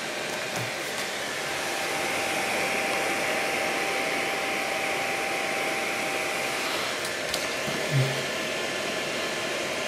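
Small computer fan on a heatsink, driven by the heat of an alcohol burner's flame, running with a steady airy whir and a faint thin whine for most of it. A soft bump about eight seconds in.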